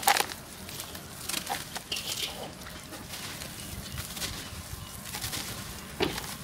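Dry sand-cement chunks crushed and crumbled by hand over a basin of water: a sharp crunch at the start, then scattered softer crunches as crumbs and powder fall into the water.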